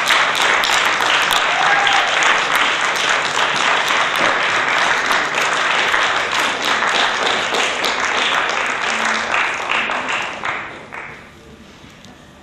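Audience applauding, a dense steady clatter of many hands clapping that dies away about eleven seconds in.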